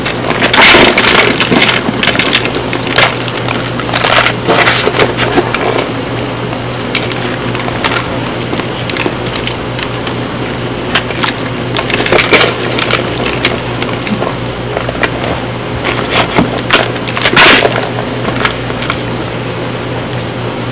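Reformed cornstarch blocks crumbled by hand: irregular, squeaky crunching as the chalky blocks break up and the powder packs between the fingers, coming in clusters with the loudest crunches about a second in and near 17 seconds.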